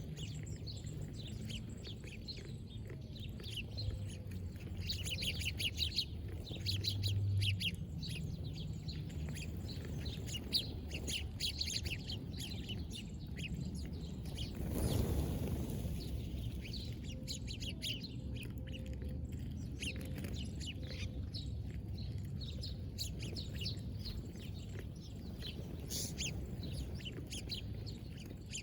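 Small birds chirping, many short high calls overlapping throughout. About halfway through, a brief rush of noise swells up and fades.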